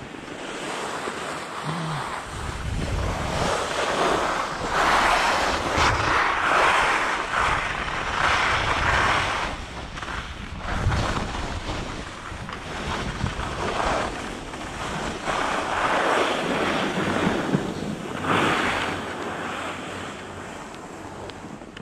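Skis hissing and scraping across groomed piste snow through a series of turns, the noise swelling and fading with each turn, with wind buffeting the microphone.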